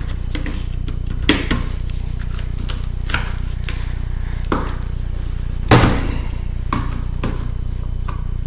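Scattered clicks and light knocks of small plastic and metal laptop parts being handled as a wire connector is worked loose inside an opened MacBook, the sharpest about halfway through. A steady low electrical hum runs underneath.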